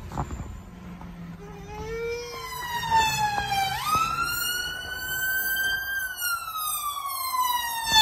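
Ambulance siren wailing, growing loud about two seconds in. Its pitch makes long, slow falls and rises, with a quick jump up in pitch about four seconds in.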